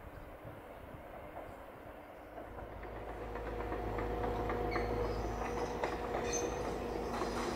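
A PolRegio EN57 electric multiple unit approaching, its rumble growing louder from about two seconds in, with a steady hum and wheels clicking over the track as it nears.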